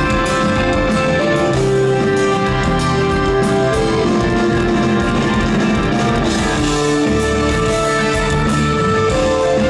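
Live progressive rock band playing an instrumental passage, with long held lead notes that change pitch every second or two over drums and bass.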